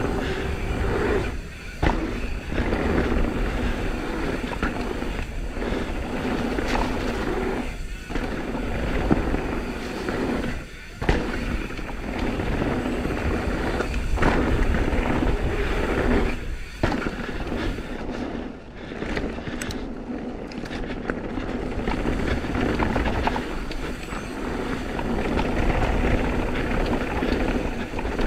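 Intense M16 downhill mountain bike riding fast down a dirt forest trail: tyres rolling and crunching over dirt and roots, with the bike's chain and frame rattling over the bumps and wind rumble on the camera microphone. The noise is steady and rattly, easing briefly every few seconds.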